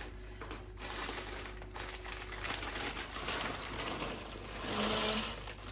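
Plastic bag of frozen peas crinkling and rustling as it is handled, louder about five seconds in, with small rattling clatter.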